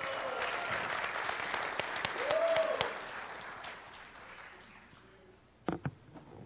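Audience applauding, with one short rising-and-falling cheer about two seconds in. The applause fades away over the next couple of seconds, and a few sharp knocks follow near the end.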